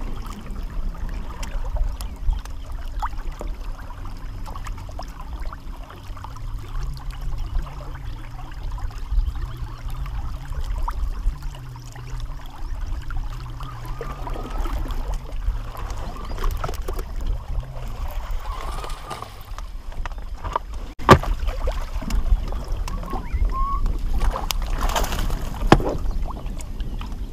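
Wind rumbling on the microphone and water lapping at a small fishing boat, with a faint steady hum through the first half. In the second half a hooked bass is played in and netted, with scattered clicks, a sharp knock past the middle and splashing near the end.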